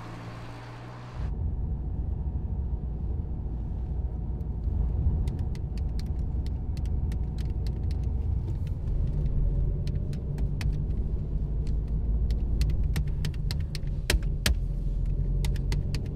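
Steady low rumble of a car driving, heard from inside the cabin, setting in about a second in after a lower hum. Many small irregular clicks and ticks sound over it.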